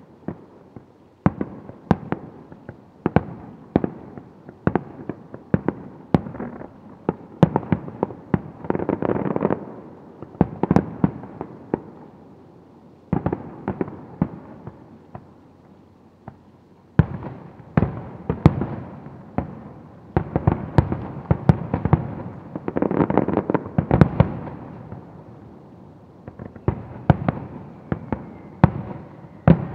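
Aerial firework shells bursting in a display: a rapid run of sharp bangs, often several a second, each trailing off into a rumble. A lull of a couple of seconds a little past halfway, then the bangs resume thickly.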